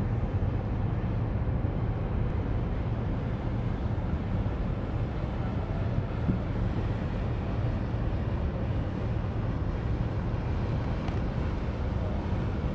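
Steady low drone of a small oil/chemical tanker's diesel engine as the ship sails past close by, with an even hum that neither rises nor falls.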